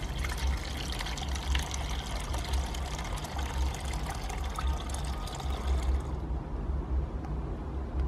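Water being poured through a funnel into a car engine's coolant expansion tank, filling with a steady splash that stops about six seconds in. A low rumble runs underneath.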